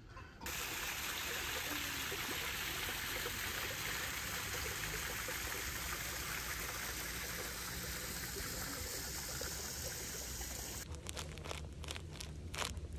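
Water trickling steadily into a temple garden pond. About two seconds before the end, a plastic bag gives a few short crinkles as it is handled.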